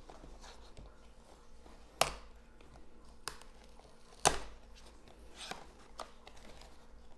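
A box and its packaging being opened and handled: a few sharp knocks and clicks with light rustling between them, the loudest knocks about two seconds and four seconds in.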